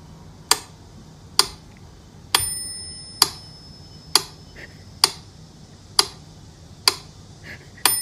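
Mechanical metronome ticking, one sharp click a little under every second, with its bell ringing on every sixth beat, twice: about two seconds in and near the end.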